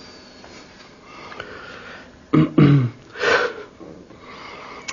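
A man makes two short voiced sounds, then a long, breathy exhale, after about two seconds of quiet room tone.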